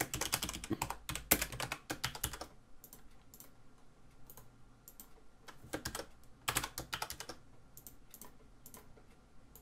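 Typing on a computer keyboard: a quick run of keystrokes, then a second run about six seconds in, with scattered single mouse clicks in between and near the end.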